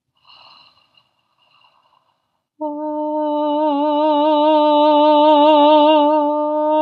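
A female vocalist whispers the vowel 'ah', then about two and a half seconds in sings a held 'ah' note with vibrato. It is an extended vocal technique, a whispered vowel moving into a voiced pitch, the opposite of the clean onset singers are taught.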